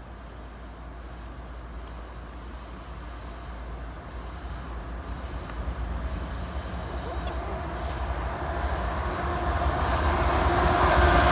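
CSX diesel freight locomotive approaching at the head of a long stack train, its engine rumble growing steadily louder as it nears. A steady humming tone comes up near the end as the locomotive draws level.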